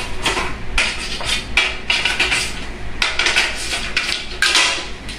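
Irregular metallic clinks and clatters as small sliding-door roller and stopper hardware is handled and knocks against an aluminium door track and a tile floor.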